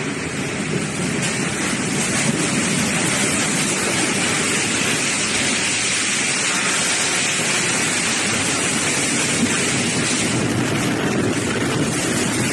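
Tornado winds and driving rain, a loud, steady rush that buffets the microphone.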